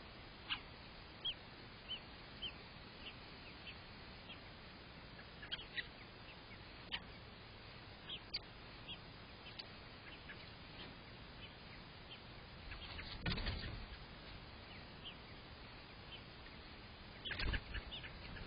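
American robins at the nest giving scattered short, high, downward-sliding chirps over a faint hiss. Two louder rustling bursts come about two-thirds of the way through and near the end.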